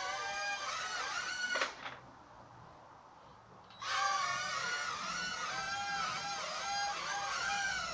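Small toy quadcopter's electric motors and propellers whining, the pitch rising and falling as the throttle changes. The whine drops away for about two seconds a little under two seconds in, then starts again.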